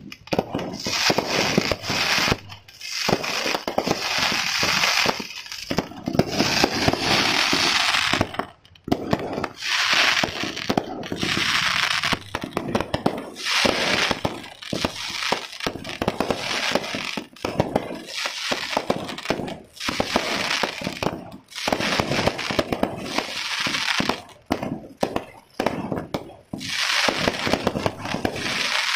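Fireworks going off: dense crackling and rapid sharp bangs from fountains and bursting crackling stars, coming in runs of a few seconds with brief lulls between them.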